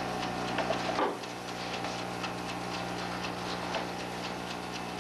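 Mechanical chess clock ticking steadily in short regular clicks, over a steady low hum.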